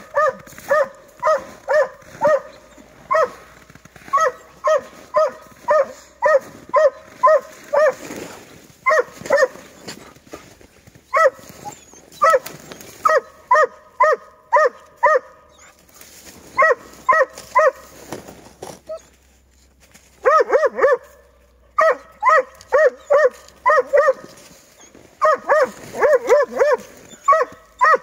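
Laika hunting dog barking at a marten it has brought to bay, short sharp barks about two or three a second in runs with brief pauses between them.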